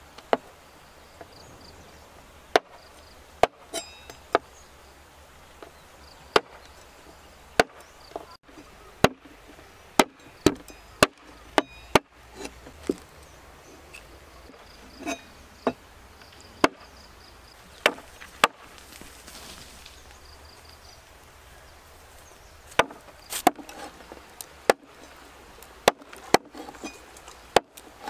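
Cleaver chopping on a wooden cutting board: sharp, irregular knocks, in runs with pauses between them.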